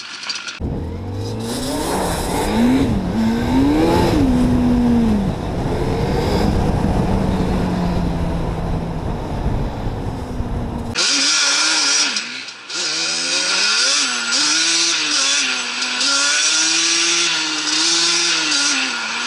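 Sport ATV engine revving up and down while riding, its pitch rising and falling with the throttle. Heavy wind rumble on the microphone covers the first half; about eleven seconds in the sound abruptly turns cleaner, and the engine's wavering pitch is heard plainly over lighter wind.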